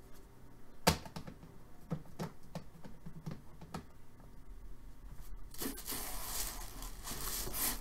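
A hard plastic puck case is handled and set down, with one sharp click about a second in and then a run of lighter taps and clicks. From about five and a half seconds in, cardboard and paper rustle and scrape as a hand slides into the puck box.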